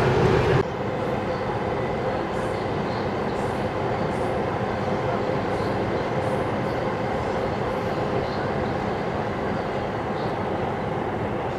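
Yamanote Line electric commuter train running on the track, a steady running noise with faint high ticks now and then. A louder train sound cuts off abruptly just under a second in.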